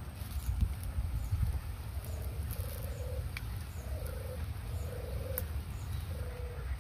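A bird calls about five times in a row, each a short, low, rough note, starting about two seconds in, over a steady low rumble.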